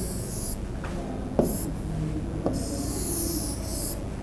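A pen drawing a curve on a board: several scratchy, hissing strokes, the longest lasting over a second, with a sharp tap about a second and a half in and a lighter one near the middle.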